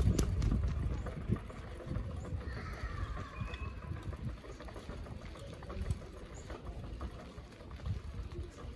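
Wind rumbling on the microphone with road noise from a moving bike ride, with irregular knocks and rattles.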